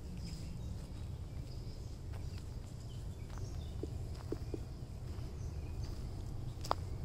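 Footsteps crunching on wood-chip mulch, irregular soft clicks, over a steady low rumble. Small birds chirp now and then, in short high notes.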